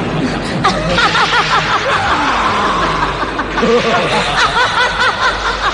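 High-pitched cackling laughter in two rapid runs, about a second in and again near the end, over a steady rushing noise.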